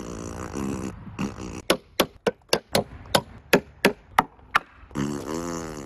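Wooden mallet knocking a glued tenon into its mortise in a timber frame: a quick run of about a dozen sharp wooden blows, starting under two seconds in.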